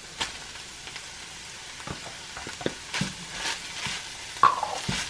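Ground beef, garlic and chopped onion sizzling in a hot nonstick skillet while being stirred with a spatula, with scattered scrapes and knocks of the utensil in the pan; the loudest knock comes about four and a half seconds in.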